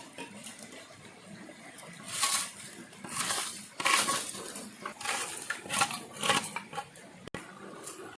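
Utensils and cookware clinking and scraping, about six times in short separate spells.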